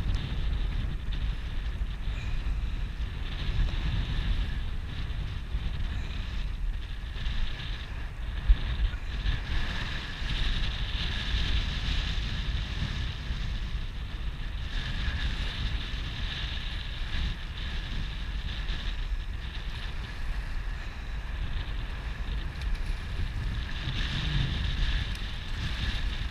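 Wind buffeting the microphone over choppy water lapping. Near the end, a small hooked striped bass splashes at the surface as it is brought in.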